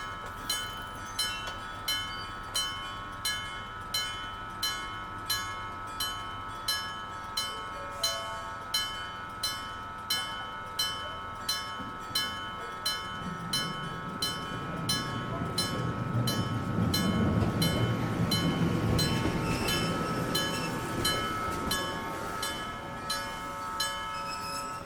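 A Kyosan-made 1963 electric gong-type level crossing warning bell striking steadily, about three strokes every two seconds, each stroke leaving a ringing tone. From about 13 seconds in, the rumble of a Keifuku Arashiyama Line train passing through the station builds, is loudest around 17 to 19 seconds, then dies away under the bell.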